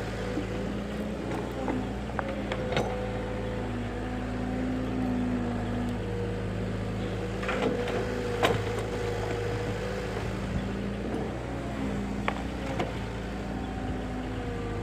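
Excavator's diesel engine running steadily, with a few sharp metallic knocks, the loudest about eight and a half seconds in.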